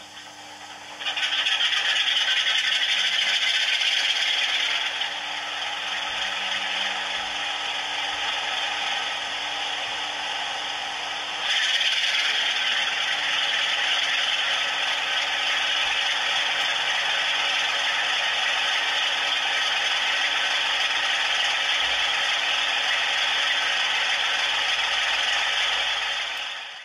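DCC sound decoder in an OO gauge Bachmann Class 47 model diesel locomotive playing its recorded Class 47 diesel sound through the model's small speaker. It is a hissy, thin rush that steps up about a second in, drops back about five seconds in, and rises again near twelve seconds, then fades away at the very end.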